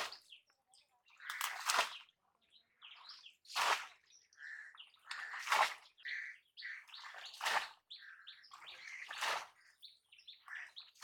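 A bamboo polo fish trap is slammed down into shallow floodwater over and over, a sharp splash about every two seconds, as the water is searched for trapped fish.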